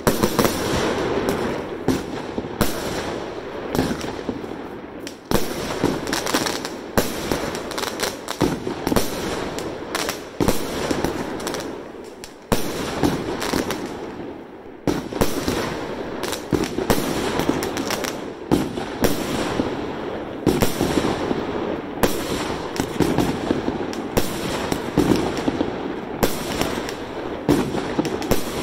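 Aerial fireworks bursting in quick succession: a dense run of bangs and crackling, with a couple of short lulls near the middle.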